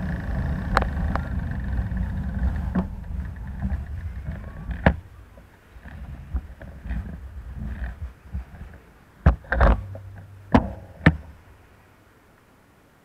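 Wind and rolling rumble on a bicycle-mounted action camera, dying away over the first few seconds. Scattered clicks and knocks follow, with a cluster of sharp clicks shortly before it goes quiet.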